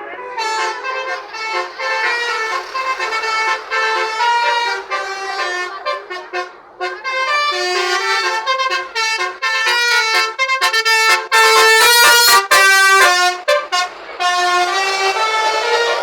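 Indonesian bus 'telolet' musical horn playing a jingly tune of quickly changing notes. It pauses briefly near the middle, then plays its loudest, fastest run of short notes about two-thirds of the way through.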